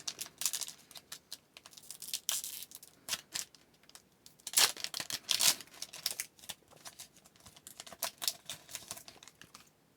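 Trading cards and pack wrappers being handled: a run of light clicks, flicks and rustles as the cards are slid and flipped, with a few louder swishes about two, four and a half and five and a half seconds in.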